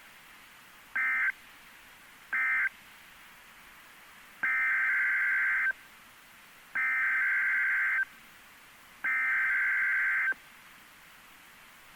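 NOAA Weather Radio SAME (Specific Area Message Encoding) digital data bursts. First come short end-of-message bursts, closing the previous warning. Then, from about four seconds in, three longer header bursts of a little over a second each, evenly spaced, open the next warning.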